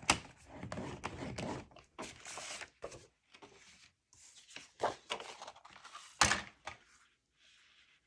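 Cardstock being scored on a scoring board: several scraping, rustling strokes of the scoring tool and paper, with a few sharp taps as the paper and board are handled, the loudest right at the start and again about six seconds in.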